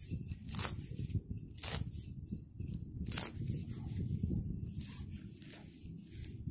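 Digging shovel stabbing into turf and tearing through grass roots as a plug of sod is cut, several sharp cuts over a steady low rumble.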